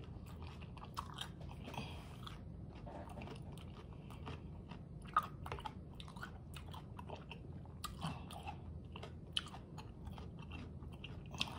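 A mouthful of crunchy hard-shell taco being chewed: a run of irregular crisp crunches and crackles as the fried corn shell breaks up, with one sharper crunch about five seconds in.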